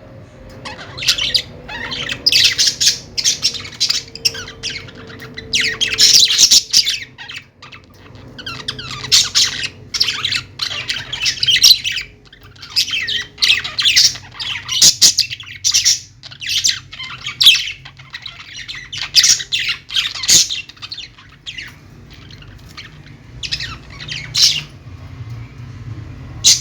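Small pet parrots chirping and squawking in quick runs of shrill calls, separated by short gaps.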